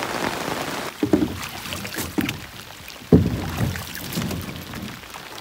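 Rain pattering on a tarp for about a second, then a series of thumps and knocks as someone climbs into a canoe and shifts around in it, the loudest a sharp thump about three seconds in, with rain falling on the lake.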